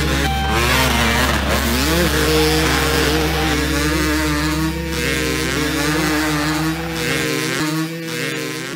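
Dirt bike engines revving up and down as the bikes race along the motocross track, dropping away near the end.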